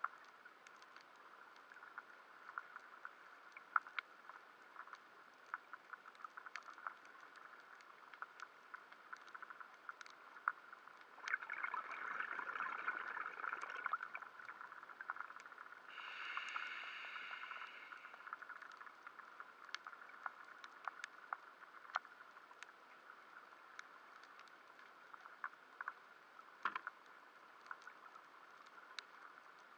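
Underwater ambience: a steady hiss with scattered sharp clicks and crackles. A louder rushing noise rises about eleven seconds in and lasts a few seconds, and a brief buzzing whine follows about sixteen seconds in.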